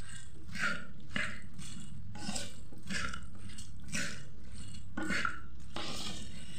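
A spoon stirring a wet mixture of sliced bilimbi and spices in a clay pot, in repeated short stirring strokes about two a second.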